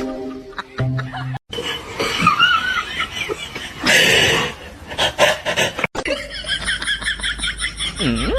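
Brief music with steady held notes, then people laughing, broken twice by abrupt cuts.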